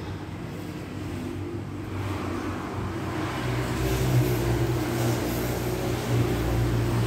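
Steady low motor hum, growing louder about halfway through.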